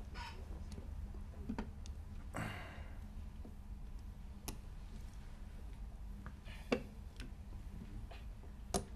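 Mahjong tiles clicking as players pick them up and set them down on the table: a few scattered clicks, the sharpest about two-thirds of the way through and just before the end, over a low steady hum.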